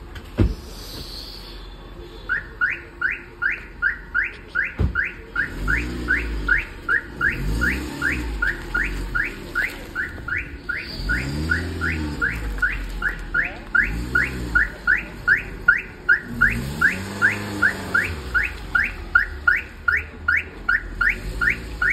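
Electronic alarm-style chirp, a short rising whoop repeated about three times a second, starts about two seconds in and keeps going. Under it, the old Maruti Suzuki Swift's engine is revved up and let fall several times.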